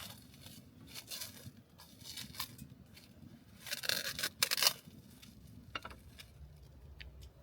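Several short, irregular rustling and scraping handling noises, with the loudest cluster about four seconds in, over a faint low background hum.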